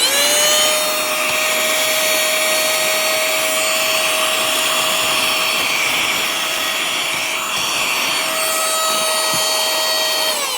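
Nikocreos cordless handheld mini car vacuum running, a little bit loud: a steady high motor whine over a rush of air, its pitch climbing briefly as it starts. Near the end it is switched off and winds down, the whine falling in pitch.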